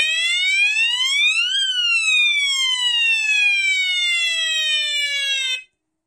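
Bicycle police light-and-siren horn sounding one electronic siren sweep. A buzzy tone rises for about a second and a half, falls slowly for about four seconds, then cuts off suddenly near the end.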